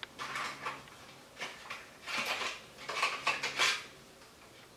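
Cosmetic packaging being handled: a cardboard lip kit box opened and lip pencils pulled out of it, making a series of short clicks and rustles.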